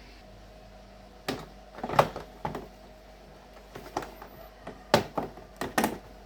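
Front body panel of a Uwinfly DF8 electric bicycle being pulled off its clips after its bolts are out: a series of sharp clicks and knocks, the loudest about two seconds in and again near five seconds.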